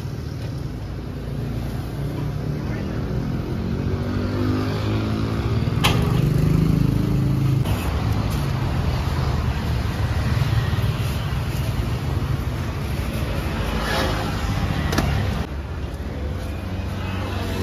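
A motor vehicle engine running steadily, with a few sharp knocks: one about six seconds in and two more near the end.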